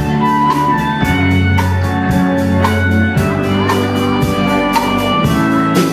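Country-rock band playing an instrumental passage: guitars over a steady drum beat.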